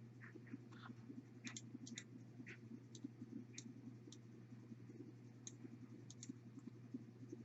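Faint computer mouse clicks, about a dozen, several in quick pairs like double-clicks, over a low steady hum.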